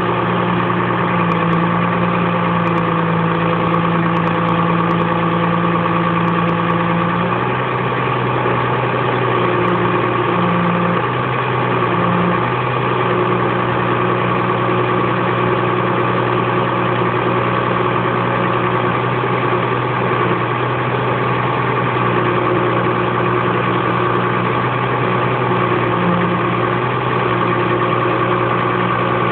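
Forestry forwarder's diesel engine running steadily while its hydraulic crane swings logs; the engine note shifts slightly about seven seconds in.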